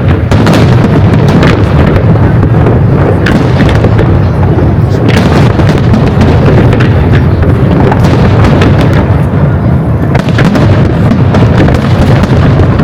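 Fireworks display in a dense barrage: a constant heavy low rumble of overlapping shell bursts with many sharp cracks on top.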